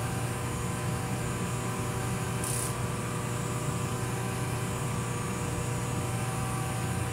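Mechanical bull ride's drive running with a steady hum made of several held tones. A brief hiss comes about two and a half seconds in.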